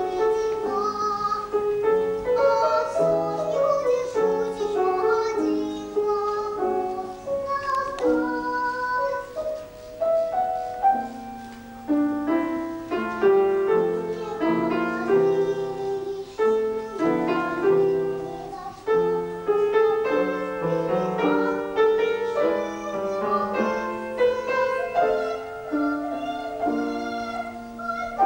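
Young voices singing a children's opera scene to live piano accompaniment.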